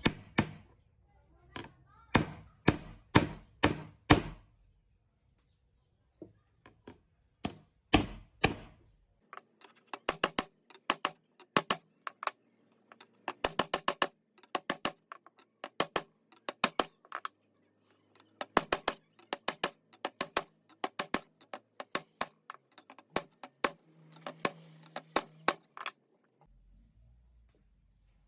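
Hammer blows on metal, fitting a bearing into the steel pipe housing of a homemade headstock: a few heavy strikes, then long runs of quick, lighter taps, several a second.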